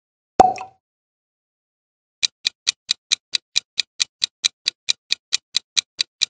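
A single sharp hit with a brief ring shortly after the start. After a silent pause, a countdown timer's clock-like ticking sound effect begins, about four to five ticks a second.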